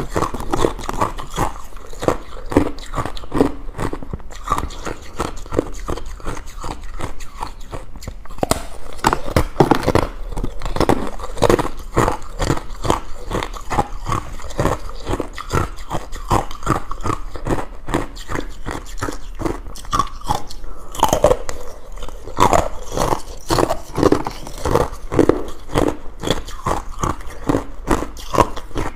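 A person biting and chewing ice: a steady run of rapid, crisp crunches with no pauses.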